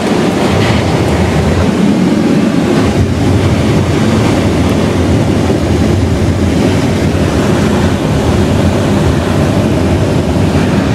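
Steady rush of airflow inside a sailplane's closed cockpit while it is on aerotow, as wind streams over the canopy.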